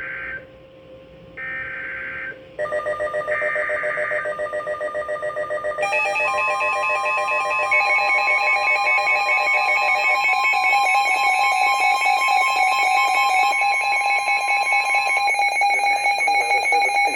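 NOAA Weather Radio EAS alert: three short bursts of buzzy SAME header data, each about a second long, then a stack of pulsing alarm tones that starts near 3 s in and thickens as more tones join. A steady single warning alarm tone sounds among them from about 6 to 15 s, announcing a severe thunderstorm warning.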